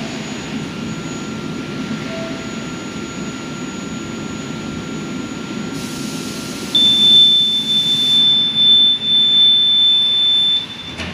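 Pallet cleaning machine's drying blower running with a steady rush of air and a faint whistle. About two-thirds of the way through, a loud, high, steady buzzer tone sounds over it for about four seconds and then cuts off.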